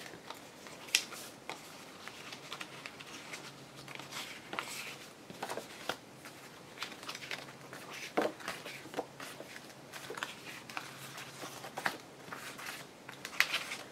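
Sheets of paper and small paper craft pieces being shuffled and rummaged through by hand: irregular rustles with short, sharp taps and flicks.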